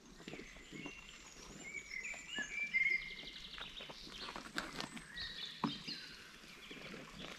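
Small songbirds singing in a forest: short high whistled phrases and a trill in the first few seconds, another phrase about five seconds in, with scattered light clicks and knocks.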